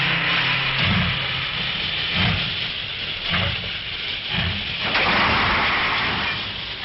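Steam locomotive hissing steadily, with low chuffs recurring about once a second.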